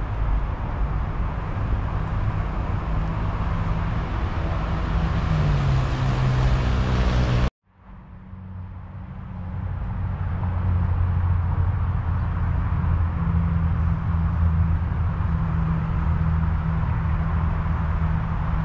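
Steady road-traffic hum with a low engine drone, one engine's pitch sliding up and down past the middle. About seven and a half seconds in the sound cuts out abruptly, then fades back up over a couple of seconds.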